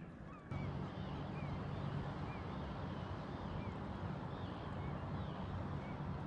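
Open-water ambience: a steady low motor-like hum with many short, high chirping bird calls repeating over it, starting about half a second in.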